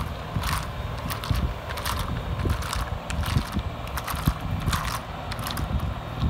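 Plastic gear-building toy running on its small electric motor: a steady low hum with the plastic gears clicking and rattling irregularly as their teeth mesh and the arms swing round.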